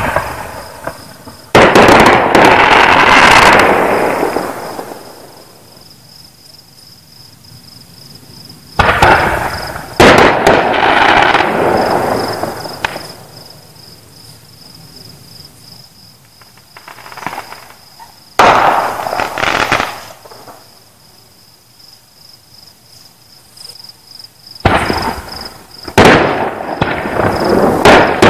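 Aerial fireworks shells bursting in loud blasts, in groups of one or two roughly every eight seconds, each fading out over a couple of seconds. Crickets keep up a steady high chirping trill in between.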